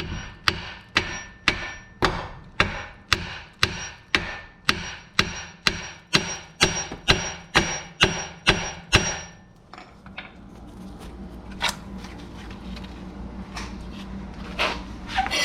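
Hammer blows on a rusted lower ball joint and control arm to knock it loose, about two strikes a second with a metallic ring, about eighteen in all. They stop a little past halfway, leaving two lone knocks later on.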